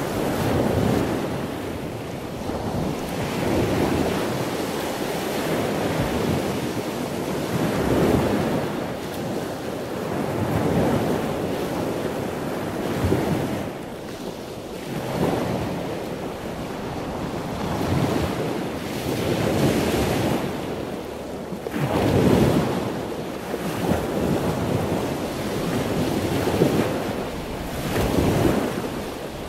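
Wind gusting across the microphone over surf breaking on a beach; the noise swells and fades every two to three seconds.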